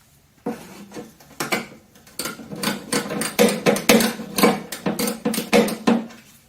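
A long string of hammer blows on metal, starting slow and speeding up to about four or five a second. It fits an attempt to shock loose a stuck pipe plug.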